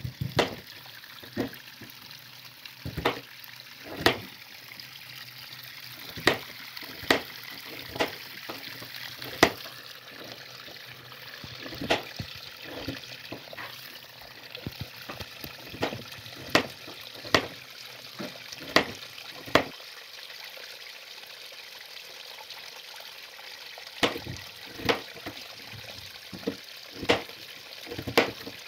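Chef's knife cutting through raw peeled potatoes and tapping down onto a plastic cutting board: sharp, irregular chops about one a second, with a pause of a few seconds about two-thirds of the way through.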